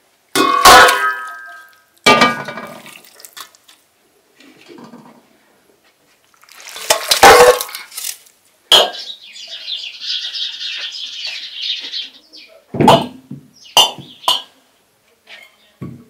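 Enamel basins clanking and ringing, then water sloshing and pouring, then glass jars clinking as they are set down on a table near the end.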